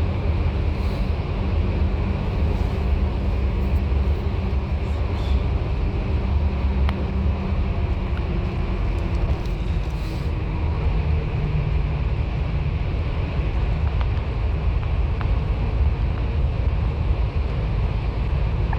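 Bus on the move: a steady low engine drone with road noise.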